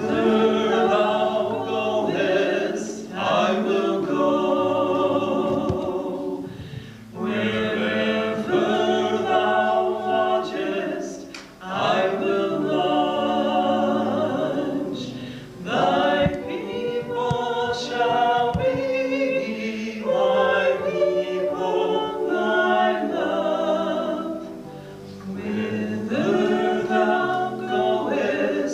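A group of voices singing together in phrases of a few seconds, each phrase separated by a short breath.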